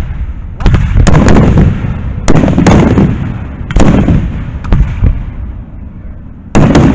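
Aerial firework shells bursting in a show: about seven loud bangs over the stretch, each trailing off in a long rumbling echo. There is a lull of a second or two before another bang near the end.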